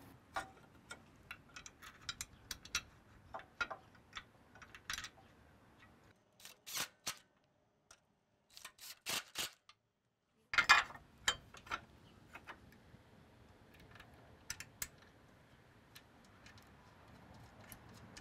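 Scattered light clicks and knocks as the stalk roll shields on a Case IH 4000 Series corn head are handled and fitted into place. The sound cuts out completely twice, briefly, a little past the middle.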